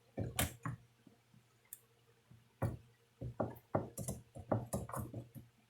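Irregular knocks and clicks of a McCulloch chainsaw being handled and turned over on the bench, some single and some in quick clusters.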